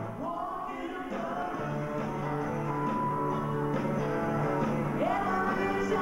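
A woman singing into a microphone over a live band, with guitar and steady bass notes. Her voice holds notes and slides up into them near the start and again about five seconds in.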